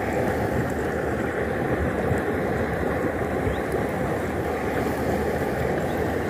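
Steady rushing of water flowing in a small river.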